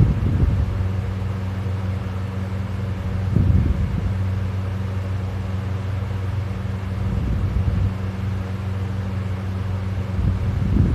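A sleeping person snoring loudly, one snore about every three and a half seconds, over a steady low hum.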